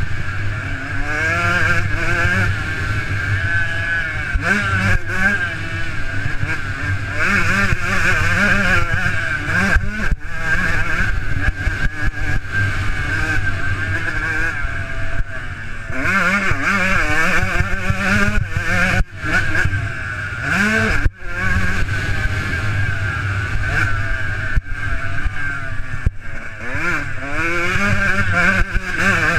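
Motocross dirt bike engine revving hard, its note climbing and falling as the throttle is worked through the corners and straights, with a few brief dips where the throttle is shut. Heard from a helmet-mounted camera, so the engine comes with wind noise.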